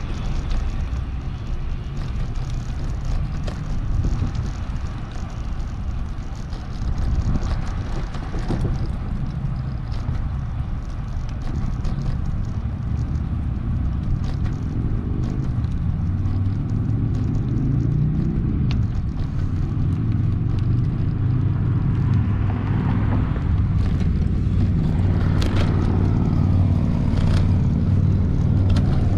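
Wind and road rumble while cycling on a road. In the second half a low motor-vehicle engine hum comes in and gets slightly louder.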